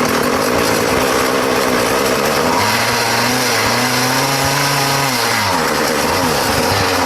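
Small two-stroke weed eater engine mounted on a bicycle, running loud and raspy. Its pitch holds for a couple of seconds, then drops a little past halfway and wavers after that.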